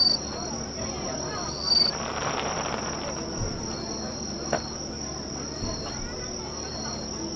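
Insects chirping: short high chirps repeating every second or so over a steady high trill, with faint crowd voices behind.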